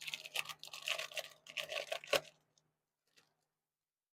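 A paper planner insert being handled: crisp paper rustling with many small clicks for about two seconds, ending in one sharper snap.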